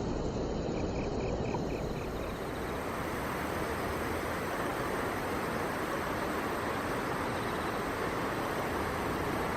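Steady outdoor rushing noise with an insect chirping in a short run of regular pulses, about four a second, in the first two seconds.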